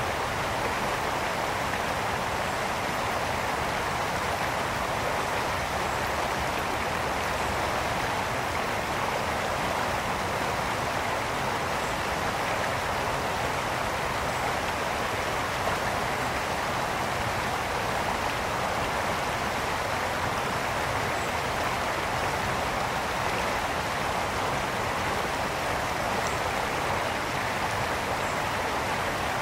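Brook water flowing and splashing over stones, a steady rushing that holds even throughout.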